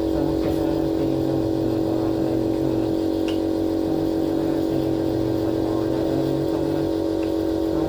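Compressor nebulizer running with a steady, even motor hum.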